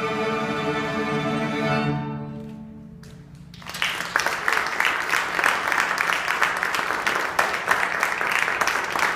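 Student string orchestra of violins, violas and cellos sounding its closing chord, which dies away about two seconds in, ending the piece. After a moment's quiet, audience applause breaks out and carries on.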